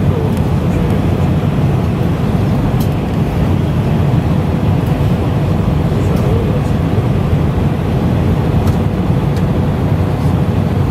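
Steady, loud jet-engine and airflow rumble heard from inside the cabin of an Airbus A320-family airliner, deep and even, with a faint steady hum above it and a few light ticks.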